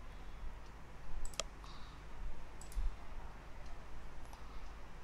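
Computer mouse clicks: one sharp click about a second and a half in, then a few fainter ones, over a low steady hum.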